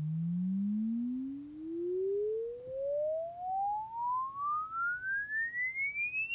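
A pure sine-tone sweep glides steadily up in pitch, summed with a copy of itself delayed by 5 milliseconds. Its loudness swells and drops away over and over, the dips coming faster and faster as the pitch climbs. This is comb filtering: the tone cancels at every odd multiple of 100 Hz (300, 500, 700 Hz and on up).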